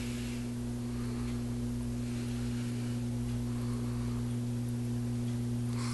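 Steady low electrical hum from a running nano reef aquarium's equipment (pump and lighting), with a faint hiss under it.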